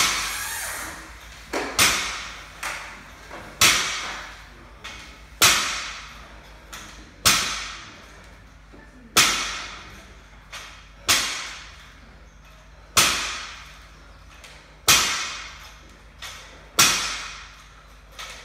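A barbell loaded with bumper plates touching down on the gym floor again and again, a sharp clank with a ringing, echoing tail about every two seconds, with lighter knocks in between.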